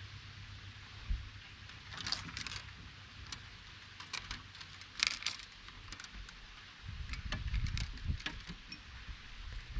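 Scattered light clicks and rattles, clustered in the first half, over a low rumble that grows louder about seven seconds in.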